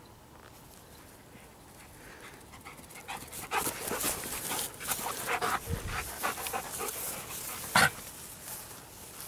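A dog panting and snuffling up close, in quick irregular puffs, with one short loud noise near the end.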